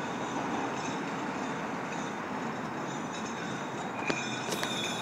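Steady outdoor city noise, with a sharp tap about four seconds in followed by a brief high squeal.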